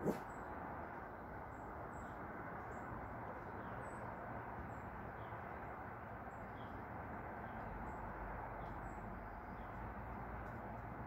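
Outdoor woodland ambience: a steady low rumble with faint high bird chirps repeating about once a second, and one sharp knock right at the start.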